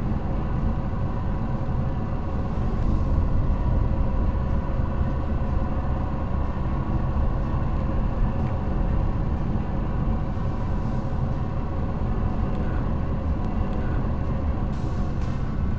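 A car driving slowly, heard from inside the cabin: a steady low drone of engine and tyre noise, with faint scattered ticks.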